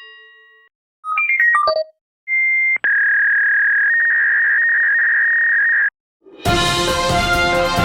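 A run of Apple device sound effects: a quick flurry of short chime notes, then a steady electronic tone like a phone line tone, held about three seconds and cut off, then loud music starting near the end.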